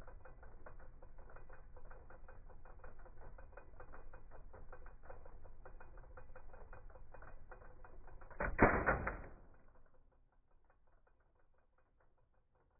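Typewriter keys clicking in a rapid, steady patter, muffled with no treble. A louder noisy burst of under a second about eight and a half seconds in, then the clicking goes on much fainter.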